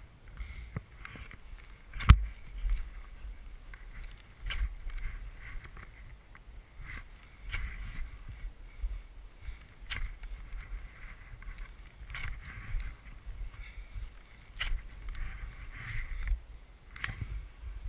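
Mountaineering boots kicking steps into a snow slope whose top layer has iced over on powder: a sharp crunching strike about every two and a half seconds, the hardest near the start, with scuffing after each and a low rumble between.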